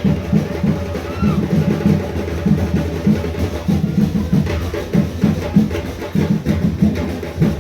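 Marching band drums and percussion playing a steady, driving rhythm.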